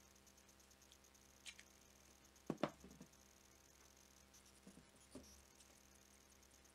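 Quiet handling noise of a plastic battery adapter and a cordless-drill battery pack: a few light clicks and knocks, the loudest pair about two and a half seconds in and two softer ones about five seconds in.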